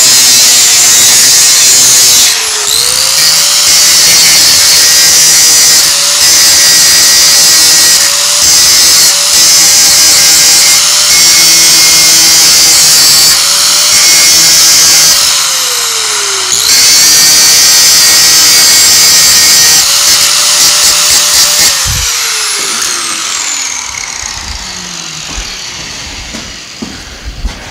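Corded angle grinder running at full speed against the cut end of a steel exhaust pipe, a high whine with a harsh hiss of grinding; its pitch dips and recovers twice. About 22 seconds in it is switched off and winds down, the whine falling away over several seconds.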